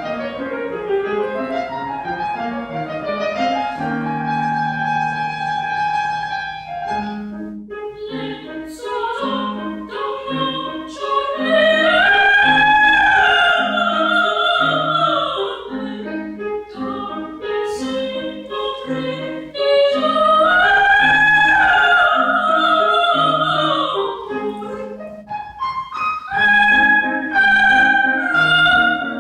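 A soprano singing an operatic, classical-style melody, holding high notes twice, over an accompaniment of short, evenly repeated low notes.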